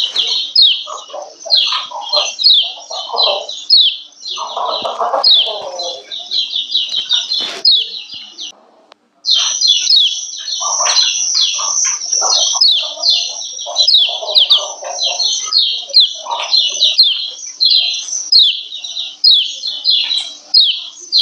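Female kecial kuning (yellow white-eye) giving its rapid 'ciak ciak' call: a fast string of short, high, downward-slurred chips, several a second, with a brief break about eight and a half seconds in. Lower, rougher calls sound underneath.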